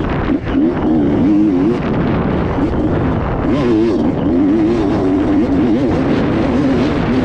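Motocross bike engine revving hard, its pitch rising and falling quickly as the throttle is worked.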